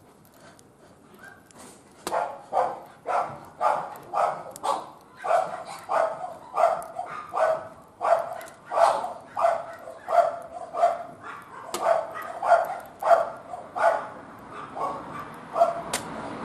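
A dog barking over and over, roughly two barks a second, starting about two seconds in.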